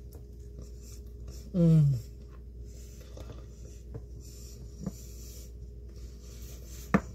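A woman's appreciative 'mmm' while eating, about half a second long and falling in pitch, a little way in. Small clicks follow later over a steady low hum.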